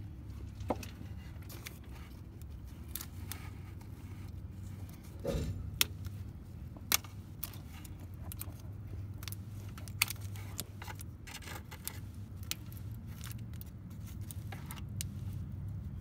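Plastic wiring-harness connectors at an O2 sensor being worked loose by hand: scattered small clicks and rattles, with a few sharper snaps, over a steady low hum.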